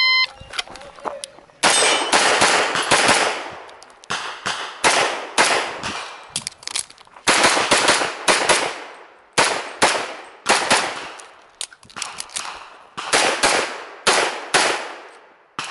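Shot timer's short start beep, then a pistol fired rapidly from about a second and a half in: many sharp shots in quick pairs and strings, with short breaks between, each followed by a brief ring.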